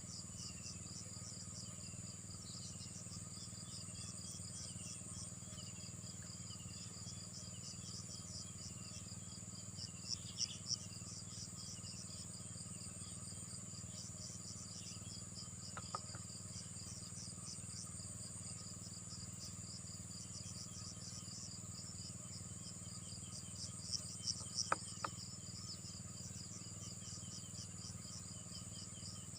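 Insects chirping in a steady chorus: rapid, evenly repeated high chirps over a continuous shrill trill, with a low steady hum underneath. Twice, about ten seconds in and again near the end, a burst of louder chirps stands out, and there are a couple of faint clicks.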